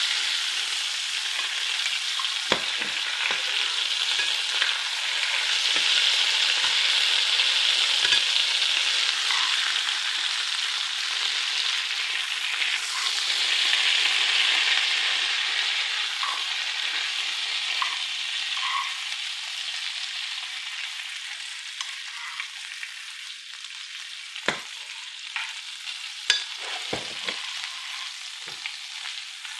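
Turkey liver searing in browning butter in a nonstick pan, a steady sizzle as it is pushed around the pan to build a crust. The sizzle dies down in the second half, and a few light knocks of the utensil against the pan come near the end.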